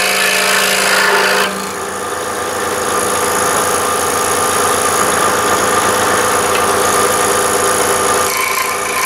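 Scroll saw running steadily, its blade cutting through a wooden CO2 dragster body. The tone changes abruptly about a second and a half in.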